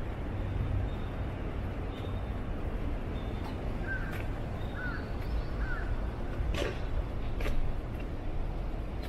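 Three short crow caws about four to six seconds in, over a steady low hum of city traffic. Two sharp knocks follow near the seven-second mark.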